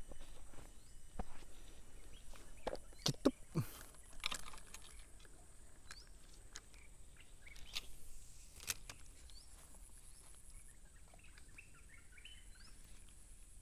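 Faint outdoor ambience with short bird chirps. Scattered sharp clicks and knocks come in the first nine seconds, the loudest a cluster a few seconds in.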